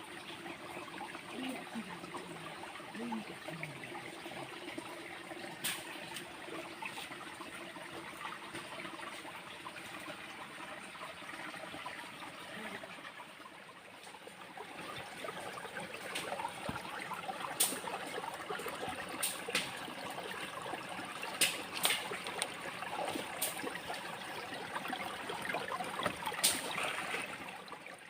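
Running water trickling steadily, with a handful of sharp clicks or splashes scattered through it.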